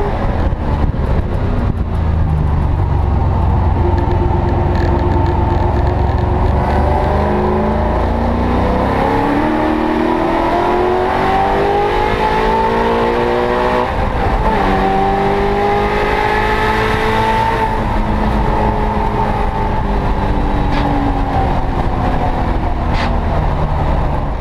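A Ford Coyote-based Aluminator XS 5.0 V8 in a Mustang race car, heard from inside the cockpit at racing speed. The engine note rises and falls through gear changes, with a sharp change about fourteen seconds in followed by another climb.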